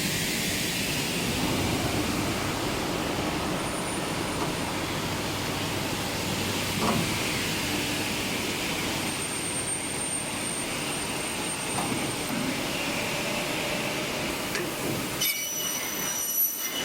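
CNC double-head mitre saw running through a cut of aluminium profile, a steady mechanical noise. A few thin high tones join about three-quarters of the way in.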